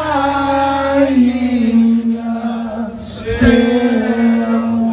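A rock singer slowly singing the closing line of the song, almost unaccompanied. The long held notes step down in pitch about a second in, then a short break comes before the last held note.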